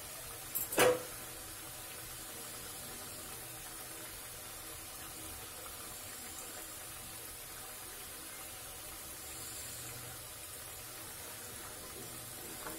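Thekua frying in hot oil in a kadhai over a slow-to-medium flame: a steady, soft sizzle of bubbling oil. A single sharp knock about a second in.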